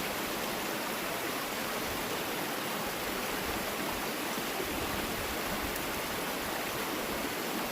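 Steady rushing of creek water running over small waterfalls.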